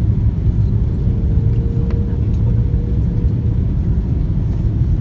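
Jet airliner cabin noise during the descent to land: a steady low rumble of engines and airflow heard from a window seat, with a faint steady whine from about one to three and a half seconds in.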